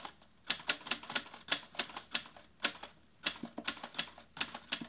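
Typewriter keys being struck in quick, uneven runs, about three sharp clacks a second.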